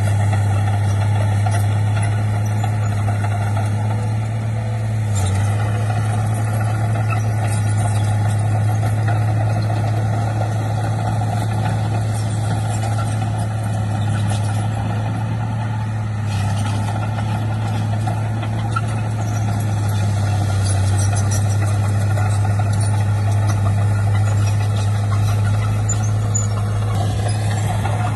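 Diesel engine of heavy earthmoving machinery running steadily at an even speed, with a strong low hum.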